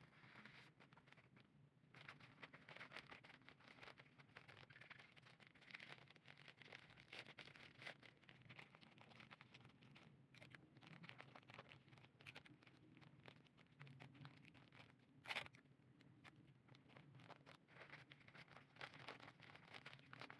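Faint rustling and crinkling of sheet wrapping paper being folded and pressed by hand, with one short sharp tap about three-quarters of the way through.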